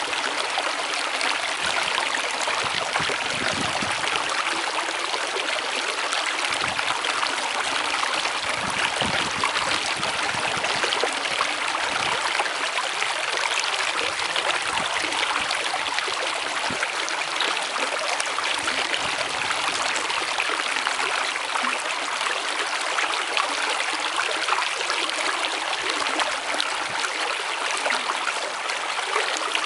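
Stream flowing steadily: a constant, even rush of running water.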